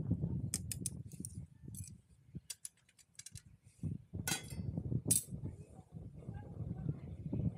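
A series of sharp clicks and clinks, the strongest two about four and five seconds in, over a low rumble that drops away for a second or so near the middle.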